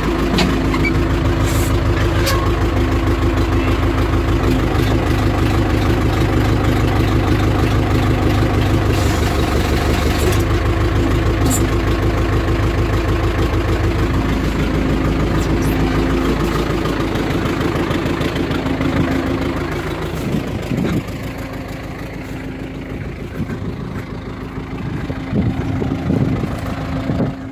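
Diesel engine of an Ostrówek backhoe loader running steadily while the bucket hydraulics are tried out on a test run after a hydraulic line repair. About seventeen seconds in the engine settles to a quieter idle, with a few short knocks.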